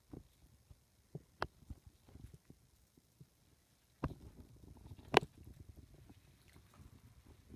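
Gloved hands handling a preserved fetal pig in a plastic dissecting tray: scattered soft clicks and taps, then a stretch of soft rustling and squishing from about four seconds in, with one sharp click about a second later.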